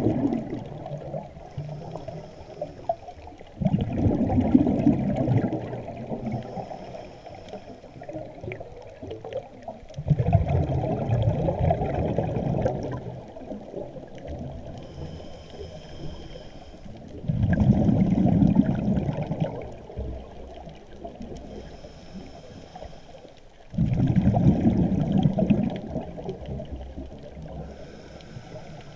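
A scuba diver breathing through a regulator underwater: a gurgling rush of exhaled bubbles about every six or seven seconds, four times, each dying away, with faint hissing inhalations through the regulator in between.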